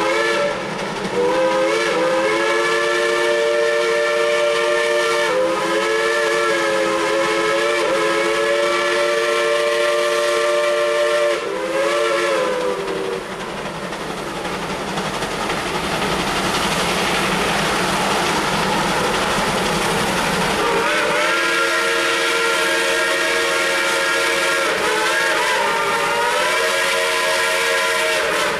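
Shay geared steam locomotive blowing its chime whistle in long blasts, a chord of several notes. The first lasts about twelve seconds, with a brief break about five seconds in, and sags in pitch as it closes. A second long blast starts about three-quarters of the way through. Between the blasts the rush of the locomotive's steam exhaust carries on.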